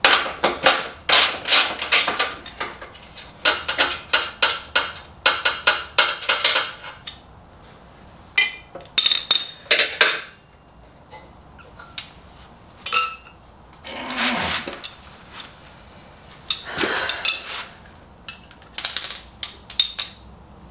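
Socket ratchet clicking rapidly in two long bursts, followed by scattered ringing metal clinks and scrapes of tools against metal, and a shorter run of clicks near the end.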